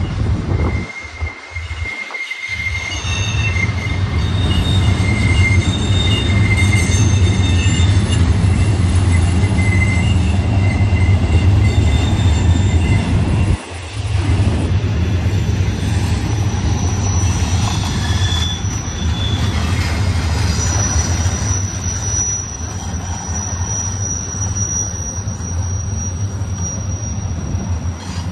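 Double-stack container train rolling past close by on the grade: a steady low rumble of steel wheels on rail with high wheel-flange squeals held at several steady pitches. The sound drops briefly twice, about a second in and near the middle.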